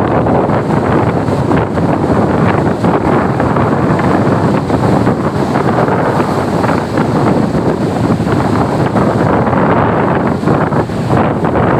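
Strong wind buffeting the microphone, loud and steady, over the rush of heavy surf on the shore.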